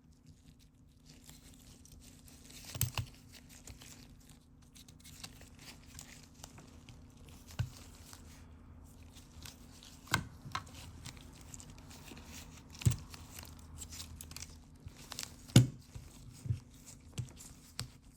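Scattered clicks and light knocks of small metal lock parts being handled and fitted by hand, with a few sharper knocks standing out.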